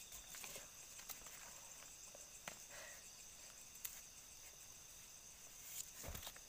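Faint steady chirring of night insects such as crickets, with a few soft scattered clicks and rustles.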